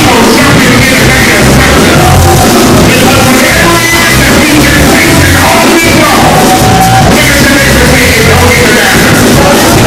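Live gospel praise music from a church band: drum kit and keyboard, with a man singing into a microphone. It is recorded so loud that it stays pinned at full level and sounds overdriven.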